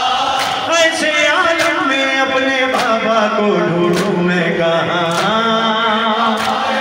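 A man singing a Farsi noha (mourning lament) into a microphone in long held, wavering notes, with other men's voices chanting along. Sharp slaps come about every 1.2 seconds: the rhythm of chest-beating (matam).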